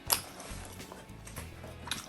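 Background music under close-miked eating sounds: a few sharp, crisp mouth clicks from biting and chewing food, the loudest just after the start.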